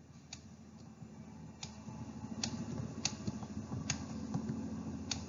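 A stylus clicking and tapping on a writing tablet during handwriting: about six sharp, separate clicks, roughly one a second, over a faint low rumble that grows after about a second.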